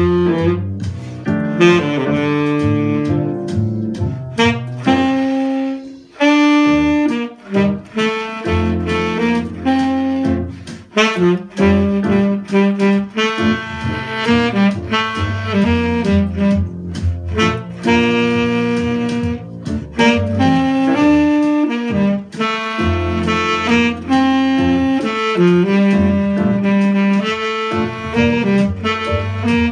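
Tenor saxophone playing a jazz line in flowing phrases of quick notes, with brief breaths between phrases.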